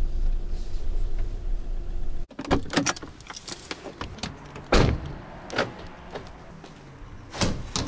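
VW Caddy van's engine running as a low rumble heard inside the cab, stopping abruptly a little over two seconds in. Then clicks and thuds of the driver's door being opened and slammed shut, the loudest thud just under five seconds in, with another knock near the end.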